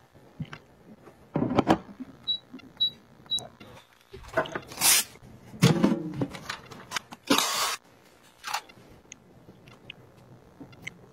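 Kitchen appliances being handled: plastic trays and an air fryer's basket drawer clicking, knocking and sliding, with three short high electronic beeps from an appliance's control panel a little over two seconds in.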